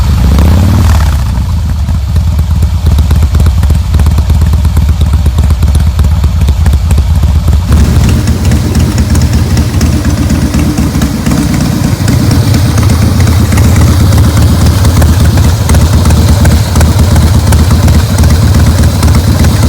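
Harley-Davidson Breakout's V-twin engine running loud through its exhaust, a deep low throb with a short rev just after the start. About eight seconds in the sound becomes fuller and stays so.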